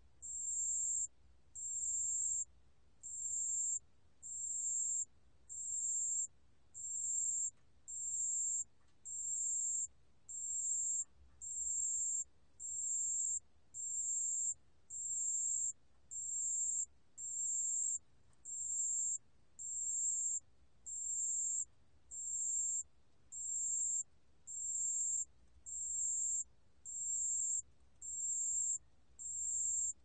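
Pale bell cricket (담색방울벌레) singing at 28 °C: a high, thin trilled chirp just under a second long, repeated steadily just over a second apart.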